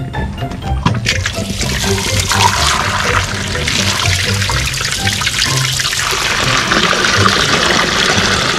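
Water poured in a steady stream from a large plastic bottled-water jug into a steel wok, splashing onto a giant conch shell as the wok is filled for boiling; the pouring starts about a second in. Background music plays underneath.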